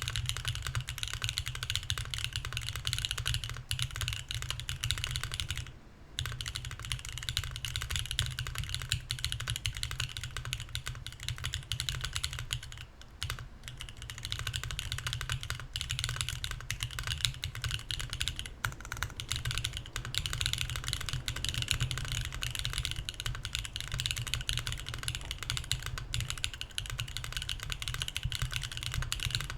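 Steady, fast typing on a Mercury65 mechanical keyboard with BSUN Anya switches, an aluminium plate, no foam and GMK keycaps: a dense run of keystroke clicks. The typing pauses briefly twice, about six seconds in and again around thirteen seconds.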